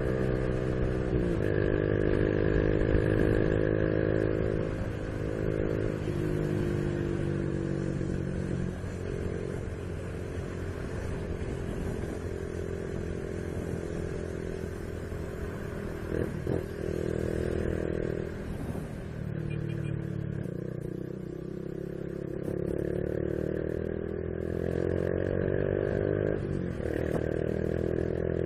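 Honda Biz 125 motorcycle's single-cylinder four-stroke engine under way and accelerating. Its note climbs and then drops abruptly several times as the rider shifts up through the gears.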